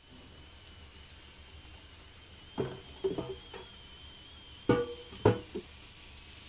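A handful of sharp clinks and knocks of kitchenware over a steady low hum with a faint high whine. The two loudest knocks come near the end, about half a second apart.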